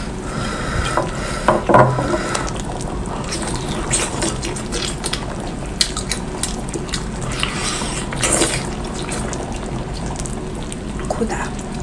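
Wet squelching and dripping as a large sauce-covered sea snail is pried out of its shell with chopsticks and eaten, with irregular sharp clicks of chopsticks against the shell and the steel pot. A couple of louder knocks come about two seconds in.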